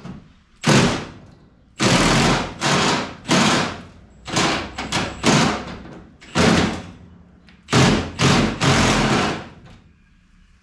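A pneumatic tool on the truck's bolts, fired in about ten short, loud bursts of a fraction of a second each, several close together in the middle.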